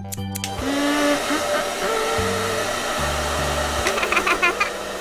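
Hair dryer blowing steadily, a cartoon sound effect that starts about half a second in, over bouncy children's background music.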